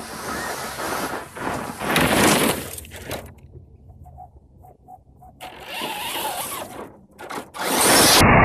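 Electric 6S RC truggy tearing across loose, dusty dirt, its tyres and brushless motor swelling and fading as it makes passes. The sound turns loud and steady near the end as the truck closes in.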